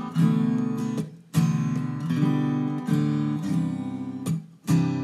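Acoustic guitar strumming chords as a slow song's instrumental passage, with no singing. The strumming breaks off briefly twice, about a second in and again near the end.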